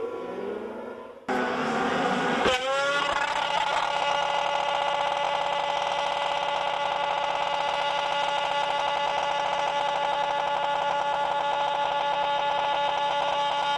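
Snowmobile engine cutting in suddenly about a second in, revving up, then holding a steady high-pitched drone.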